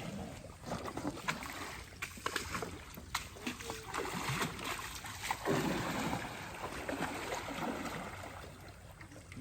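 Water splashing and sloshing, with scattered short knocks, busiest about halfway through.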